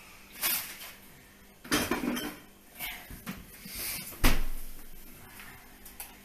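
Clattering and knocking of things being handled in a small kitchen at the fridge: a series of short separate knocks and clinks, the loudest a sharp knock about four seconds in.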